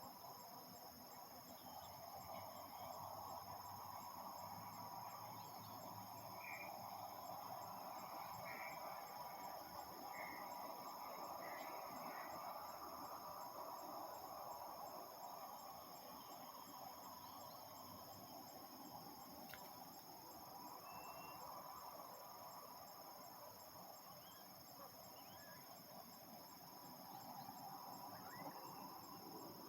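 Steady high-pitched chorus of crickets and other insects, over a faint distant hum of harvest machinery. A few short bird chirps come between about six and twelve seconds in.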